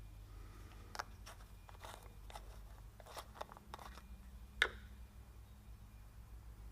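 Valve being hand-lapped into its seat in a Cummins 12-valve cylinder head: faint, gritty scrapes and clicks of metal on metal through lapping compound, coming in irregular strokes with the sharpest click a little past halfway.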